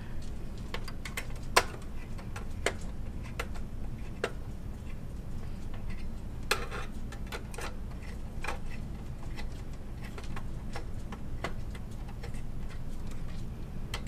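Scattered, irregular light clicks and taps of a screwdriver and fingers against the metal heat sinks and parts inside an HP Z800 workstation's case, the sharpest about a second and a half in, over a steady low hum.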